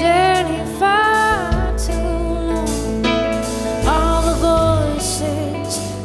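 A woman singing with grand piano accompaniment in a live performance, her voice in several short phrases over long held low bass notes.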